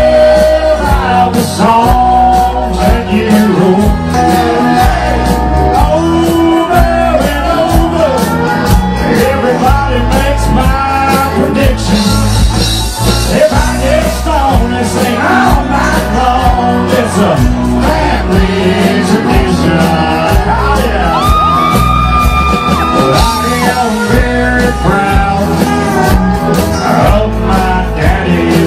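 Live country-rock band playing with electric guitars, bass guitar and drums on a steady beat, with singing over it.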